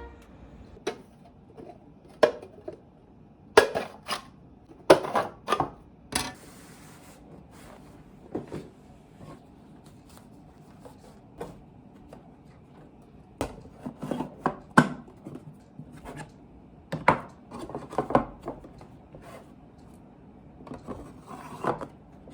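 Scattered light knocks, taps and clatter of household objects being handled, in short clusters with quiet stretches between.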